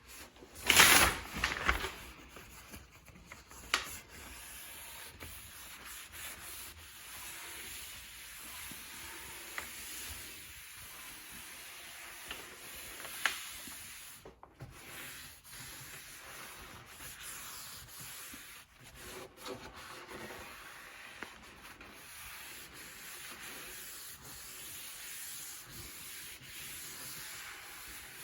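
Steady hand rubbing on a wood surface, with a loud scrape about a second in and a few sharp clicks along the way.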